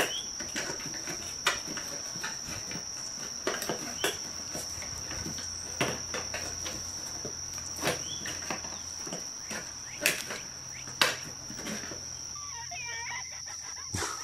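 Scattered light taps and knocks as cats bat with their paws at the holes of a cardboard whack-a-mole toy box, over a steady high-pitched whine.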